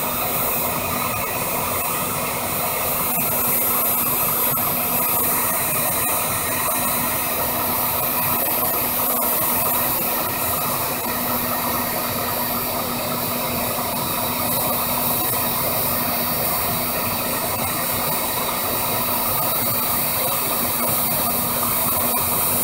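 Electric heat gun running steadily: a continuous rush of blown air with a steady low motor hum under it.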